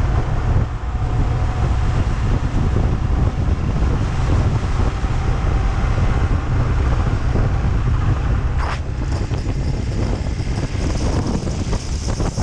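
Motorcycle ridden at road speed, its engine running under heavy wind buffeting on the microphone.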